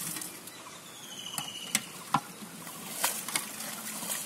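Pond water splashing and sloshing around people wading with a net, with scattered sharp knocks, the two loudest near the middle. A faint high whistle is heard about a second in.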